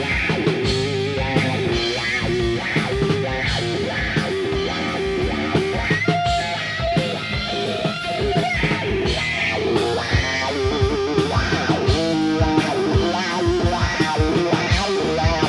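A rock band playing, with repeating electric guitar riffs over drums.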